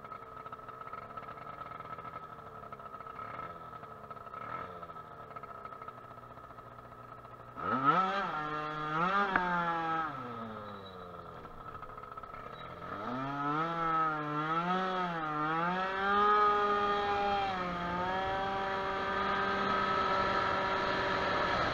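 Baotian Falcon 50R scooter with a Stage6 Racing High End 23 hp two-stroke kit, first idling with a few light throttle blips. About seven and a half seconds in it revs up sharply as it pulls away, eases off, then climbs again with the pitch wavering before holding high and steady at speed. The owner says it is running a bit rich in the heat.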